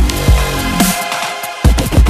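Electronic dance music in a dubstep or drum-and-bass style: heavy bass and hard kick drums that drop in pitch. The beat thins out for a moment and comes back with a loud hit just before the end.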